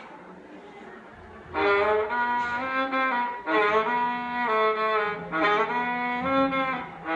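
Solo viola, bowed, coming in about a second and a half in after a quiet start and playing a melody of held notes in three short phrases.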